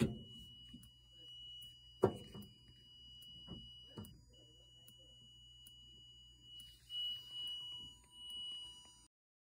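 Multimeter continuity beeper sounding a steady high tone while its probes are held on a part, broken off briefly about four seconds in. A few sharp knocks of handling come in the first four seconds.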